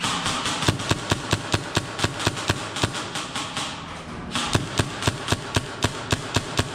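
Airsoft gun firing a rapid string of single shots, about four a second, pausing briefly about four seconds in.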